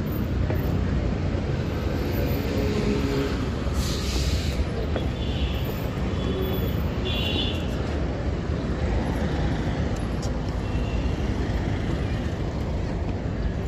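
Road traffic passing beneath a footbridge: a steady rumble of motorcycles and cars. A brief hiss comes about four seconds in, and a few short high tones follow over the next few seconds.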